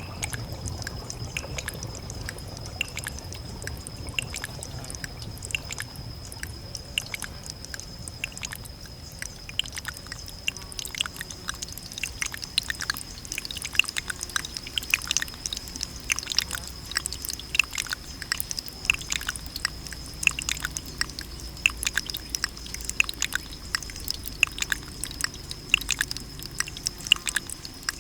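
Water dripping: a dense, irregular patter of sharp droplet clicks that grows busier about ten seconds in, over a faint steady high-pitched tone.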